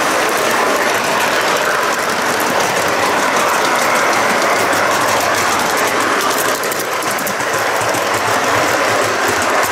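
A model train running on metal track: the metal wheels clatter steadily over the rails, with a rapid stream of fine clicks, heard close from on board the last wagon.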